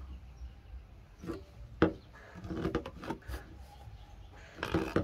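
Handling noise of a blue PVC pipe: a few knocks and short bursts of rubbing and clatter as the plastic pipe is turned and moved in the hand, with one sharp knock about two seconds in.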